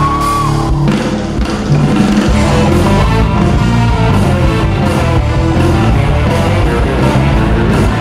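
Live rock band playing: a held high note ends about half a second in, then electric guitar, bass guitar and drum kit come in hard just under a second in and play on steadily.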